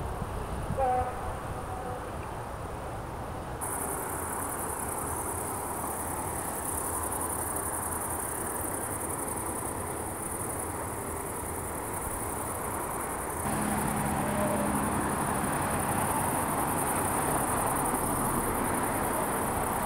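Steady high-pitched chirring of insects in the grass, with the outdoor background shifting abruptly twice. A short faint chirp comes about a second in.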